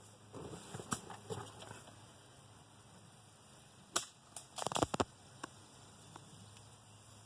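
A few sharp clicks or knocks over a quiet background: a single strong one about four seconds in, then a quick cluster of them just before five seconds.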